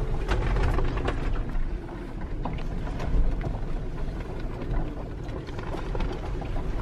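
Small CLC Pocketship sailboat underway, heard from inside its cabin: a steady wash of water and wind noise with scattered knocks and rattles.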